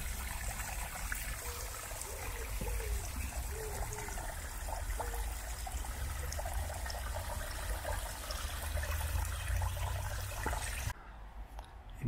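Small brook waterfall trickling and splashing, a steady rush of water over a low rumble; the sound cuts off abruptly near the end.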